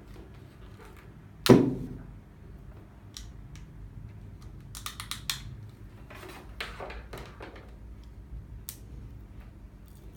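Hard plastic and metal parts of a mobile phone security display stand being handled: a sharp knock about a second and a half in, a quick run of clicks near the middle, then lighter scraping and rubbing.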